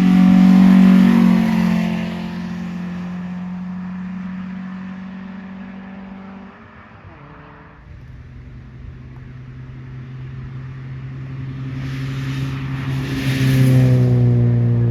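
VW Polo hillclimb race car passing at high revs on a steady engine note that fades away. A second race car's lower engine note then comes in from about halfway and grows louder, loudest near the end as it approaches.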